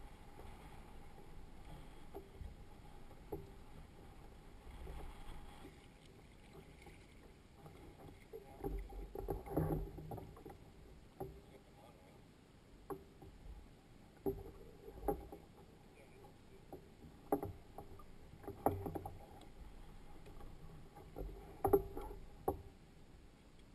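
Scattered knocks and taps of a paddle and fishing gear against a plastic fishing kayak's hull, about ten in the second half, over faint water and wind noise.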